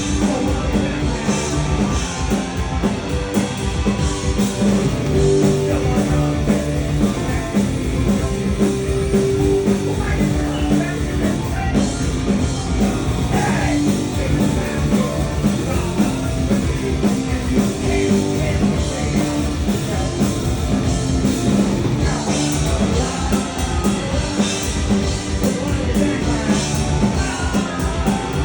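Punk rock band playing live at full volume, with drum kit and amplified instruments driving a steady fast beat.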